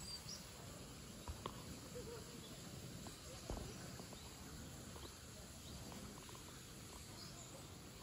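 Quiet outdoor ambience by a pond: a steady low background rumble with a few faint clicks and faint high chirps.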